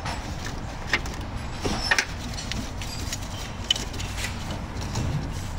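A wrench clinking and clicking against metal as it turns a bolt: a few sharp clicks and knocks, loudest about one and two seconds in, some with a brief metallic ring, over a low steady hum.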